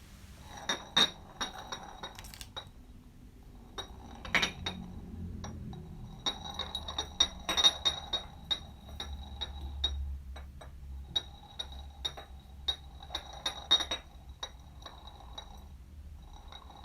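A jar rolling across a floor: a low rolling rumble broken by runs of clinks with a high ringing tone, coming in several bouts separated by brief pauses.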